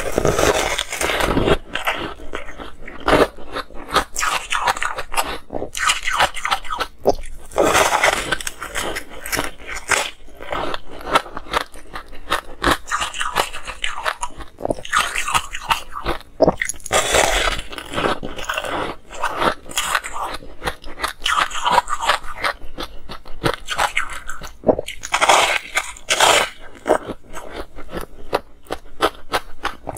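Ice being bitten and chewed close to a clip-on microphone: dense crackling crunches from a large frozen block, swelling into louder bursts of bites every several seconds.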